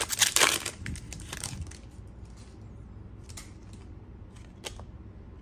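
Foil wrapper of a trading-card pack crinkling as it is torn open and peeled off the cards, loudest in the first second and a half. After that, a few short, soft rustles as the stack of cards is handled.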